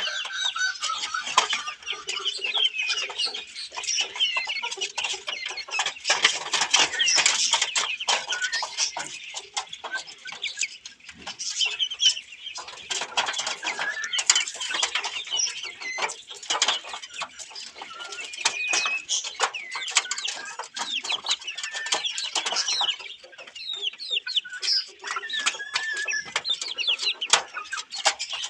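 Australorp chickens clucking and calling over one another, with many quick clicks in among the calls.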